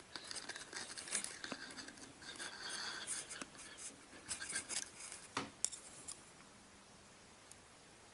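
Small handling noises: fingers working thin rigging thread on a wooden jig, with scattered soft clicks and rustles that die away after about six seconds.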